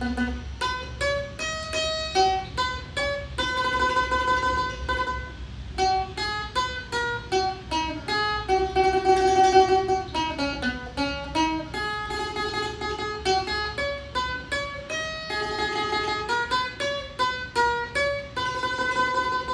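Bowl-back mandolin played solo with a pick: a slow melody of short single notes alternating with long held notes.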